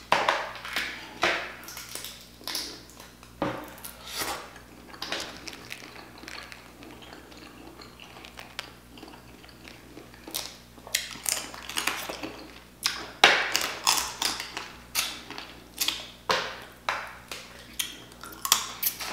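Boiled crawfish shells cracking and snapping as they are broken apart by hand, with close-up chewing and mouth sounds. The crackles and clicks come irregularly and grow busier and louder in the second half.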